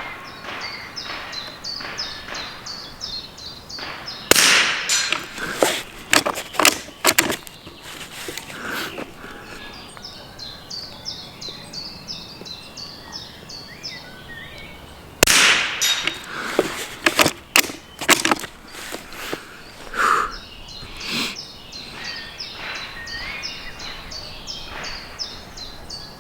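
Norinco JW25A .22LR bolt-action rifle fired twice, about eleven seconds apart. Each shot is followed by a quick run of clicks and clacks as the bolt is worked to chamber the next round. Between the shots there is rapid high chirping in the background.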